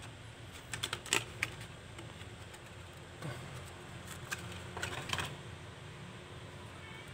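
Light clicks and taps of small hard parts being handled, in three short clusters, with the loudest near the start, over a faint steady low hum.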